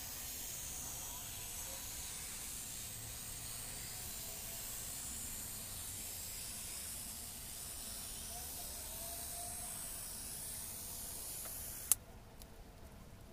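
Steady faint hiss that cuts off abruptly with a click about twelve seconds in.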